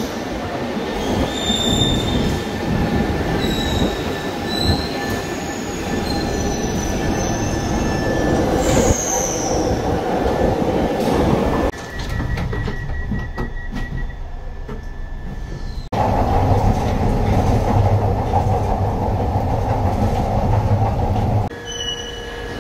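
Glasgow Subway train running into a station: steady wheel-and-rail rumble with several high-pitched wheel squeals rising and falling over the first half. Midway it turns quieter, with a steady whine while a train stands at the platform with its doors open. Then loud train running noise returns and drops away shortly before the end.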